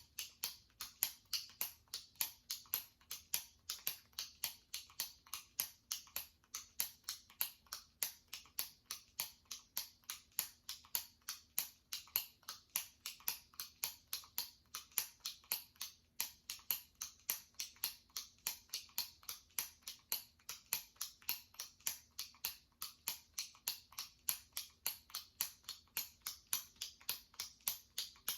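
Jumbo retractable pen clicking: the top button is pressed over and over in a steady, rapid run of sharp clicks.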